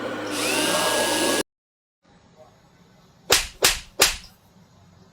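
A loud hiss with a faint rising tone that cuts off suddenly about a second and a half in, then after a quiet gap three sharp whip-like smacks in quick succession: comedic hitting sound effects for a beating.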